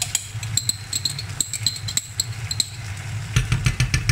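Chicken fillets and onions frying in pans: a steady crackle of sizzling over a low steady hum. Near the end a spoon works in the pan, and the sound grows louder with quick knocks.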